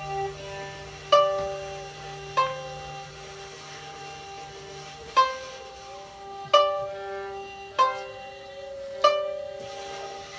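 Sparse experimental string music: six sharply plucked notes at uneven intervals, each ringing out and fading, over a held mid-pitched tone and a low drone that drops out about halfway through.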